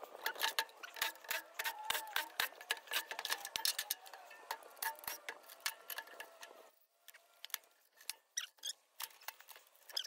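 A hand tool working on the contactors and wiring of a sheet-metal electrical control box: irregular sharp metal clicks and ticks, several a second. They pause about two-thirds of the way through, then a few more come near the end.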